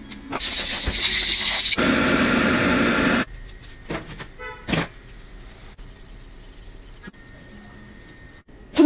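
Loud rushing air from a pet grooming blow dryer for about three seconds, changing pitch partway through and cutting off suddenly, followed by a brief squeak.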